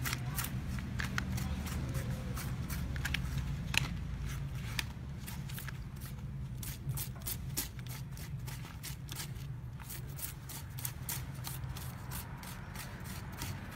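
Small knife scraping the scales off a snake's skin: quick, irregular scraping strokes, a few a second.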